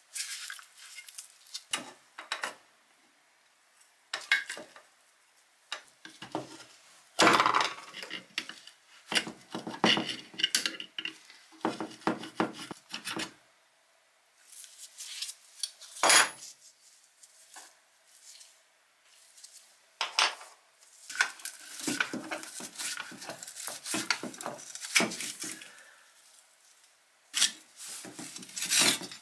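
Rusty iron parts of an antique coal iron being handled and pried apart with a metal rod: irregular metallic clinks, knocks and scrapes in bursts, with quiet gaps between them.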